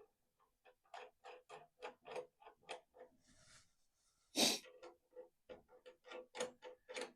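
A run of light, even clicks, about three a second, broken by one louder knock about four and a half seconds in.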